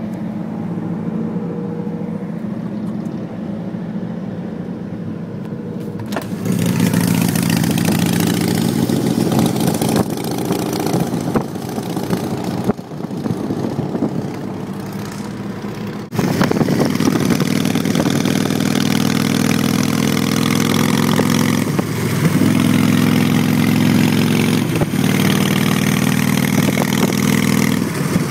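Harley-Davidson Nightster's 1200 cc V-twin running under way through Vance & Hines Big Radius exhaust pipes, heard from a car alongside. It gets louder about six seconds in, drops back for a few seconds, then jumps up sharply about sixteen seconds in.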